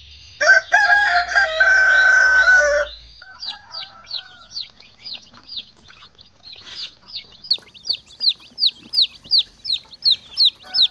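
A rooster crowing once, a loud call drawn out for about two and a half seconds. Then a long run of short, high, falling chirps follows, about two a second, growing louder toward the end.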